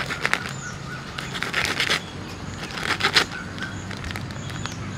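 Wrapper of a sweet crinkling and rustling as it is opened by hand, in three short spells, with faint bird chirps behind.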